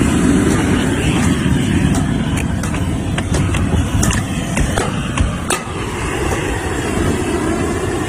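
Steady low outdoor rumble with scattered sharp taps and clicks, a long-handled tool knocking ice off an ice-glazed car, mostly in the middle few seconds.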